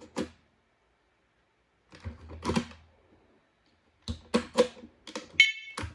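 Plastic smoke alarm units being handled, with clicks and knocks in three short clusters, then one of the alarms gives a short high electronic beep near the end, a sign of the units being linked together.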